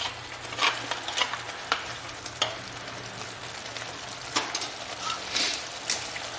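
Onion-tomato masala sizzling and bubbling in a steel kadai as it is fried down in chicken stock, with short scrapes of a wooden spatula against the pan every second or so.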